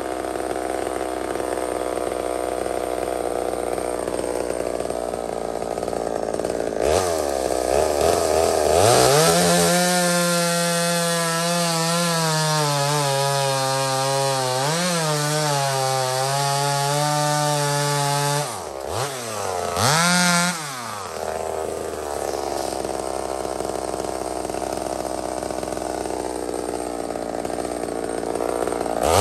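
Homelite XL76 two-stroke chainsaw running at idle, then throttled up at about seven seconds and held at high revs for about ten seconds while bucking a log. It drops back to idle, blips once, idles steadily and revs again at the end.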